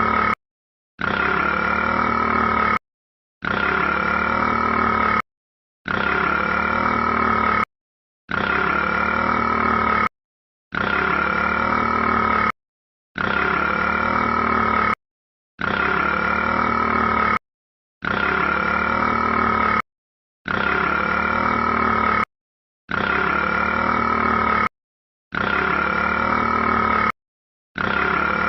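A burp of about two seconds, looped identically over and over with half a second of dead silence between repeats, about every two and a half seconds.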